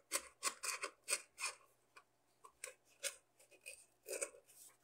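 Handheld lever craft punch clicking as it punches shapes from a sheet: a dozen or so short, sharp snaps at an uneven pace. The punch is not working smoothly.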